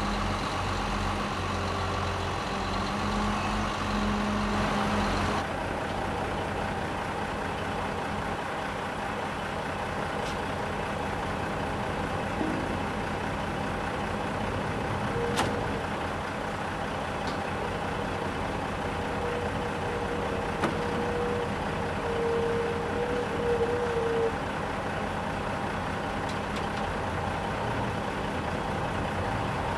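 Heavy diesel engines of mobile cranes and a lowboy tractor-trailer running steadily. The sound changes abruptly about five seconds in. There are a few sharp clicks or knocks, and a held tone for several seconds in the middle.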